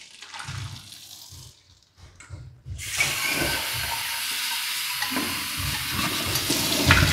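Water poured out of a stainless steel flask splashes into a steel kitchen sink; then, about three seconds in, the kitchen tap runs steadily into the flask, with sloshing as the flask is swirled and rinsed out.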